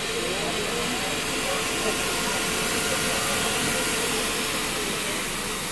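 A 12-volt high-speed DC centrifugal blower fan running steadily: a strong airy hiss of moving air with a steady hum beneath it.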